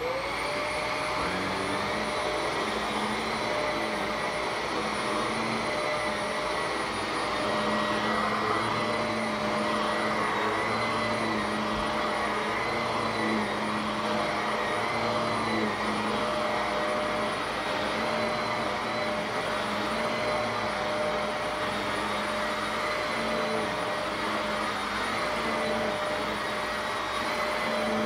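Upright vacuum cleaner just switched on, its motor whine rising to pitch in the first moment, then running steadily with a high whine over the rush of suction as it is pushed over the floor.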